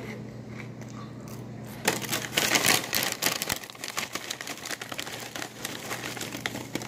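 Close crinkling and rustling, like plastic or paper being handled right at the microphone, starting about two seconds in as a dense run of crackles that is loudest early on and then thins out. A low steady hum sits under the first two seconds.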